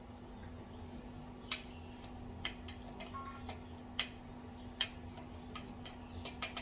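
Dry cat food clicking: about a dozen sharp, irregular clicks over a steady low hum.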